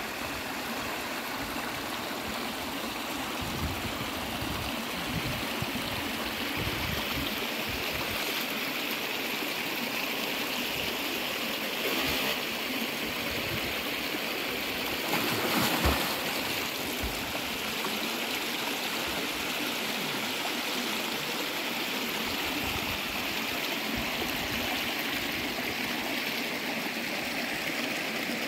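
Shallow river water running and gurgling over rocks in a steady rush, with a brief louder burst about sixteen seconds in.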